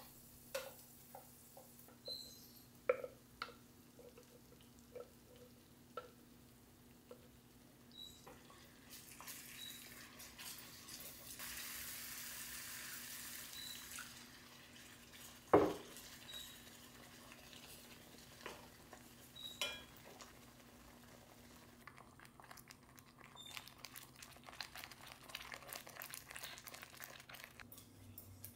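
A wooden spoon tapping and stirring thick masala in a cast-iron skillet, with water poured into the pan as a steady hiss for several seconds about nine seconds in. One sharp knock comes just after the pouring, and busier scraping strokes follow near the end.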